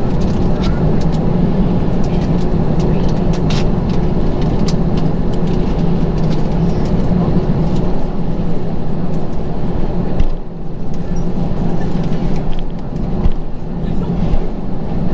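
Steady rumble of an Airbus A321's jet engines and airframe heard inside the passenger cabin, with scattered light clicks and rattles. The level dips briefly about ten seconds in.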